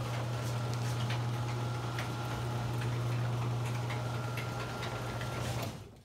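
Liftmaster ½-horsepower screw drive garage door opener running as it raises the door: a steady motor hum with a faint higher whine and light clicks, cutting off near the end as the door reaches its fully open position.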